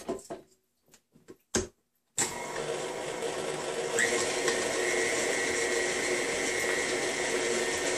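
A few clicks as a beater is fitted to a tilt-head stand mixer, then about two seconds in the mixer's motor starts and runs with a steady whine, getting louder about four seconds in as it beats butter, sugar and egg into cookie dough.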